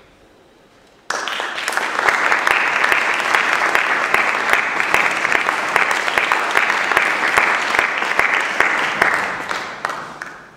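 Audience applauding: clapping breaks out suddenly about a second in, holds steady, then fades out near the end.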